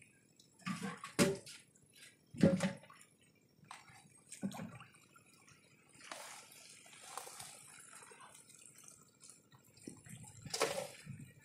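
Shallow water splashing and sloshing in irregular bursts as a plastic bowl scoops fish out of a net, with a louder splash near the end.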